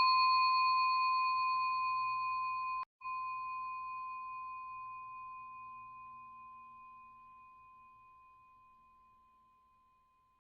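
A single bell-like chime closing a music jingle, ringing with a clear high tone and slowly fading away, with a brief break about three seconds in.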